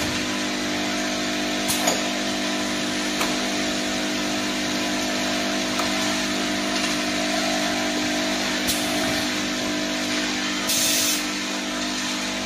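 Automatic bottle filling and capping line running: a steady motor hum over a mechanical clatter, with occasional sharp clicks and a short hiss near the end.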